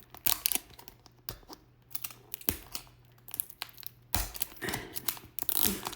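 Handling of plastic toy packaging: scattered clicks, taps and light crinkling as it is moved and set in place.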